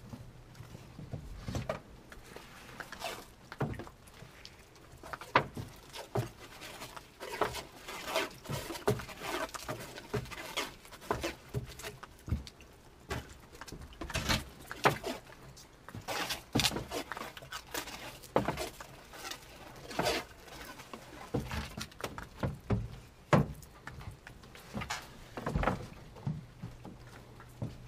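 Irregular light knocks and clicks of wooden canvas stretcher frames being handled and stacked against one another.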